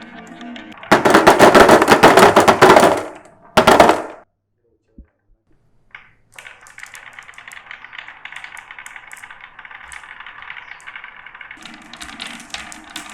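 Marbles clattering rapidly down a marble run track: a loud dense rattle of clicks about a second in for about two seconds, a second short clatter, then after a pause a fainter steady rattle of marbles rolling.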